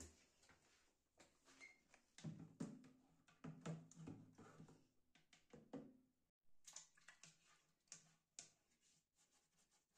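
Quiet household handling sounds: a scatter of light clicks and knocks, busiest in the middle.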